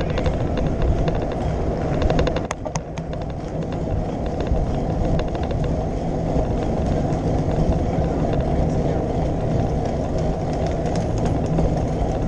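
Wind rushing over the microphone of a handlebar-mounted camera on a moving bicycle, a steady low rumble, with quick light clicks and rattles from the bike.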